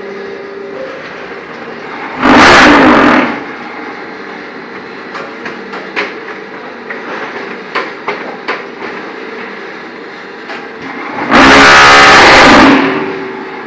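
ZCJK4-15 concrete block making machine running: a steady motor hum with scattered metal clanks and knocks. Twice, about two seconds in and again near the end, a very loud harsh burst lasting a second or so.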